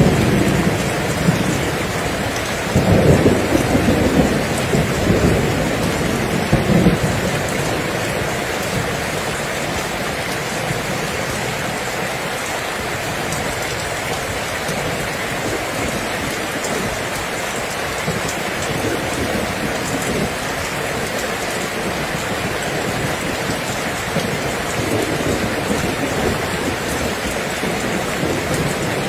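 Steady heavy rain falling, with a low rumble of thunder in the first several seconds that fades into the even rush of the rain.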